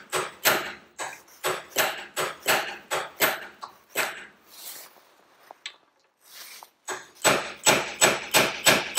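Hammer tapping a steel punch to drive a tractor's brake cross-shaft knuckle onto its keyed shaft, metal on metal, at about two taps a second. After a pause of a couple of seconds comes a quicker run of harder taps near the end. The knuckle is struggling to go on, tight over a key that is still a little proud.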